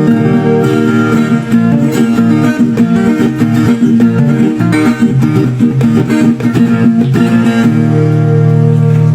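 Background music led by a plucked guitar, ending on a held chord and cutting off just after.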